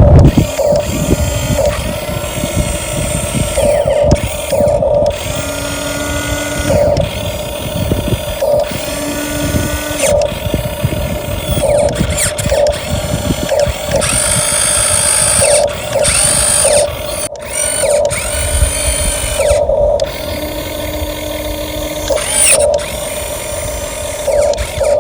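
Radio-controlled dump truck's electric motor and gearbox whining as it drives, the whine rising and falling with the throttle in short pulses.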